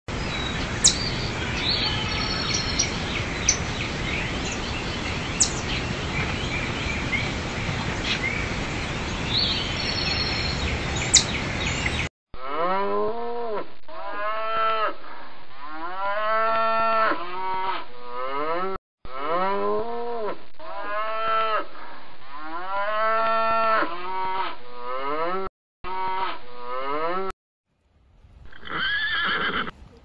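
Cattle mooing over and over in a herd: long, arching, low calls that follow one another closely for about fifteen seconds. Before this there is a steady outdoor hiss with a few brief high chirps. Near the end a horse begins to whinny.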